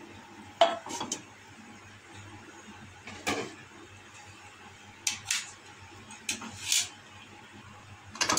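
Cookware clattering: a glass pan lid and a spoon knocking against a nonstick wok in a scattering of short clinks and clacks, the loudest just after half a second in.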